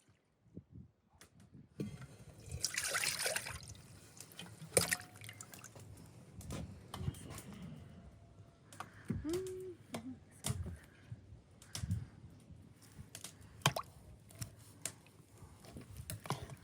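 Water splashing and dripping, with a longer rush of pouring or sloshing about two seconds in, then scattered small clicks and knocks of handling.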